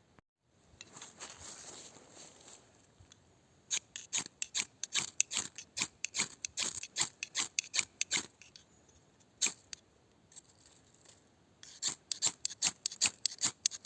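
Mora Frosts knife blade making a quick series of short, crisp cuts during a cutting test, about two or three a second, in two runs with a pause between, after a brief softer rubbing stroke.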